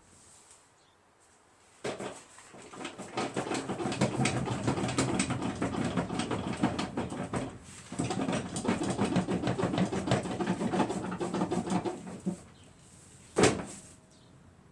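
Ratchet wrench clicking rapidly as a seat bolt is turned, for about ten seconds with a short pause in the middle. A single sharp knock follows near the end.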